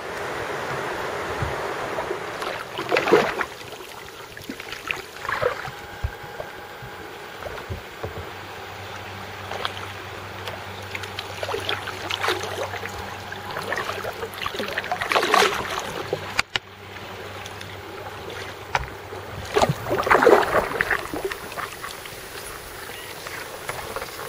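Kayak paddling: paddle blades dipping and splashing in calm river water every few seconds over a light wash of water and wind, with a faint steady hum in the middle.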